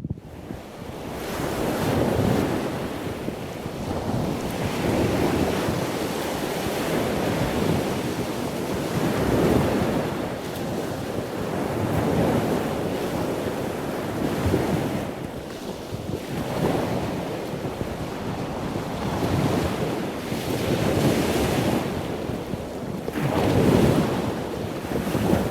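Ocean surf: waves washing in and drawing back, the rush of water swelling and fading every few seconds.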